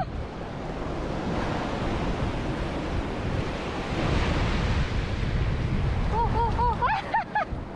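Strong sea wind buffeting the microphone over the wash of surf. Near the end comes a quick run of short, high-pitched arched calls.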